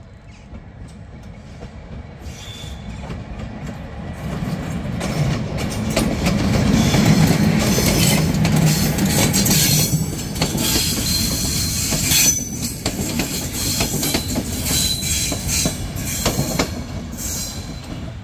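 A train hauled by a Romanian Class 41 electric locomotive draws near and goes by, growing louder over the first several seconds. Its wheels clatter over the rail joints and squeal on the rails as the cars pass.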